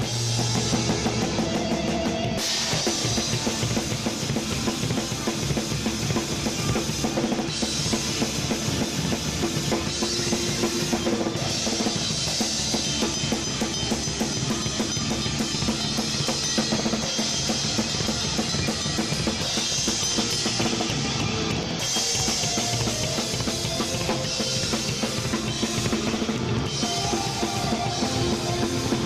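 A rock band playing live at a sound check, with the drum kit to the fore: bass drum, snare and cymbals driving steadily, the cymbal wash changing every few seconds as the part changes.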